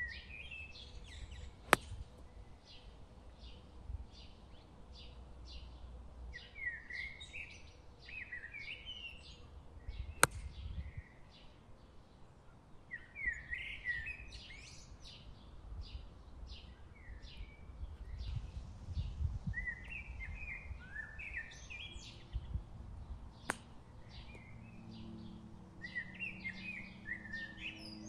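Birds chirping and singing throughout, with three sharp clicks of an iron striking a golf ball, spaced several seconds apart.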